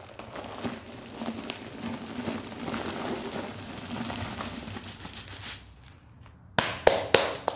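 Fine white cleanser powder crunching in gloved hands and pouring down through the fingers in a steady soft hiss. Near the end, four sharp claps as the powdered gloved hands are brought together.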